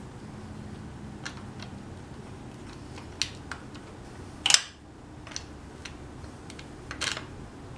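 Handling noise: scattered light clicks and taps of a motorcycle clutch cable and its fittings as it is fed back into place on the engine. The sharpest click comes about four and a half seconds in, and another strong one comes near the end.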